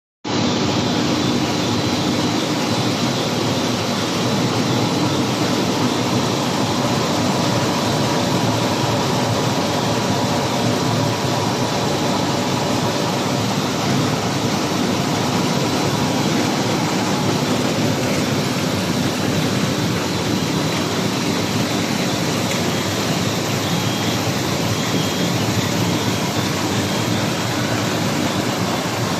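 Jumbo-roll paper slitting and rewinding machine running steadily: a continuous, even mechanical noise with a few faint steady hums in it.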